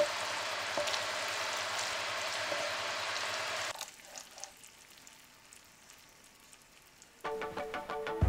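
Thick tomato sauce sizzling and spattering in a pan on the hob as it reduces nearly to its finished thickness, with a wooden spoon stirring through it. The sizzle cuts off a little over three seconds in, leaving a quiet stretch with a few soft clicks, and music begins near the end.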